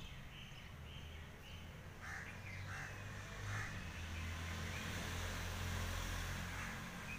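Faint outdoor animal calls: a quick run of short calls in the first second or so and a few more about two seconds in, over a low steady rumble.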